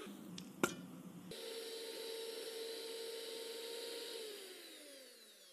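Electric hand mixer whipping cream: its motor runs at a steady pitched hum, then slows down, falling in pitch and fading over the last second or so as it is switched off. A sharp click comes just over half a second in.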